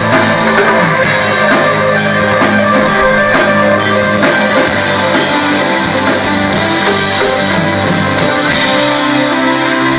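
Rock music with electric guitar and a drum kit playing steadily.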